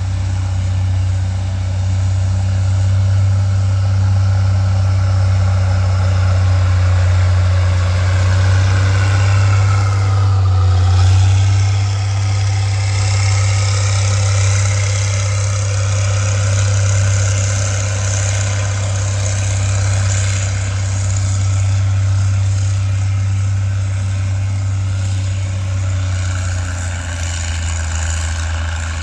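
Vehicle engines running, with a steady low idling hum throughout, as pickup trucks and a van drive slowly past over loose graded dirt. One vehicle passes loudest about ten seconds in, its pitch sliding as it goes by.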